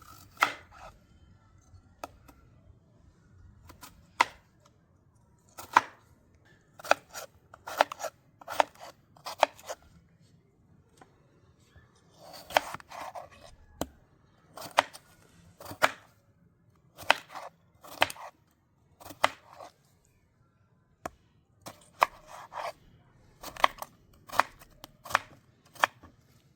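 Potatoes being chopped with a knife: sharp, uneven chops, some single and some in quick runs of two or three, with short pauses between.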